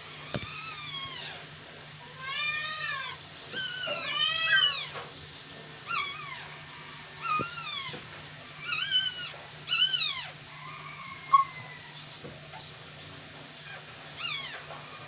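Newborn border collie puppies crying: about eight high, thin squeals, each rising then falling in pitch, with short gaps between. A single sharp click sounds about eleven seconds in.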